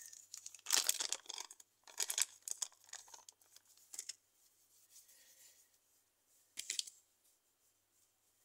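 A small zip-lock plastic bag of modelling clay crinkling and rustling as it is handled, in several short bursts, the loudest about a second in and another near the end.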